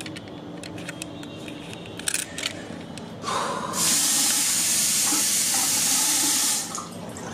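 Water gushing from a bathroom tap into a sink for about three seconds, then turned off abruptly, after a few light clicks.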